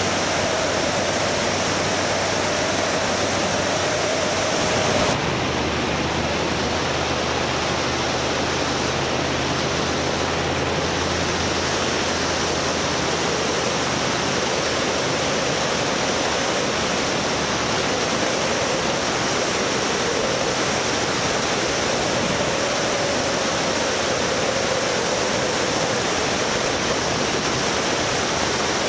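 Vehicle running with a steady rushing noise and a faint wavering whine. The sound changes abruptly about five seconds in.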